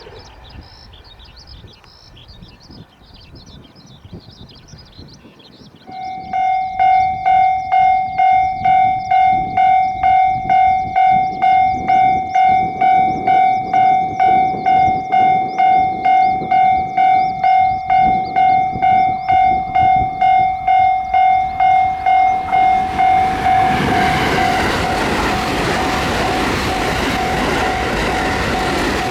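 A Japanese railway level-crossing warning bell starts about six seconds in, ringing a loud electronic tone about twice a second. Near the end a train runs through the crossing with a broad rush of wheel-on-rail noise while the bell keeps ringing.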